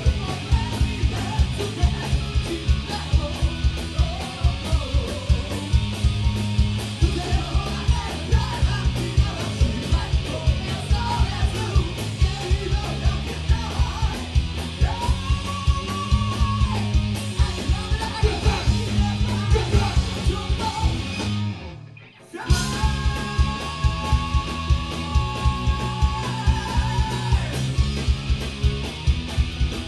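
A symphonic metal band playing live: steady pounding drums, distorted electric guitars and singing with long held notes. The band stops dead for about a second roughly two-thirds of the way through, then crashes back in together.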